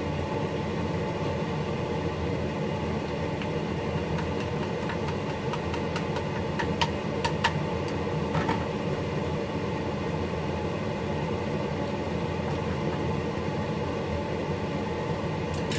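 Steady mechanical hum, with a few light clicks and taps about halfway through as chicken pieces are scraped with chopsticks from a plastic tray into a plastic chopper bowl.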